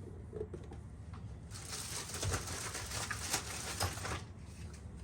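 Hands handling plastic parts: a dry rustling with many small clicks and taps, starting about a second and a half in and lasting close to three seconds.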